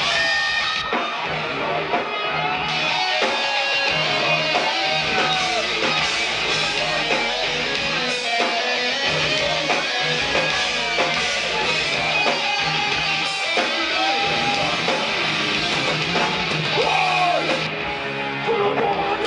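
Heavy metal band playing live, with loud distorted electric guitars over the full band.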